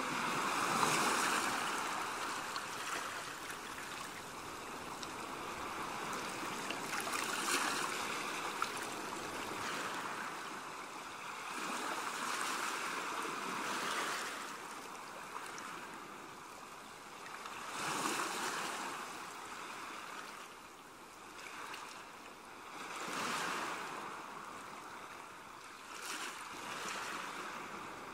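Rushing water noise that swells and fades every few seconds.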